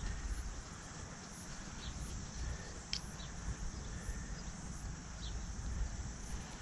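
Outdoor ambience in grass: a steady low rumble on the microphone, scattered short high chirps, and one sharp click about three seconds in.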